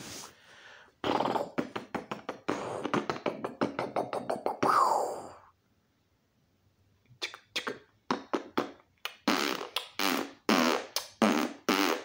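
Fart-like noises made by a man, each a rapid flapping buzz: a long run of them in the first half, ending on a falling note, then a pause and several shorter bursts.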